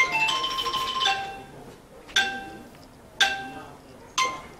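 Ringing, bell-like pitched notes: a quick cluster of tones at the start, then three single strikes about a second apart, each fading away.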